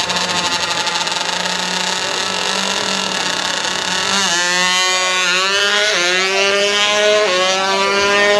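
Small drag motorcycle running at the start line, then launching about four seconds in and accelerating hard. The engine note climbs and falls back at each upshift, about once a second.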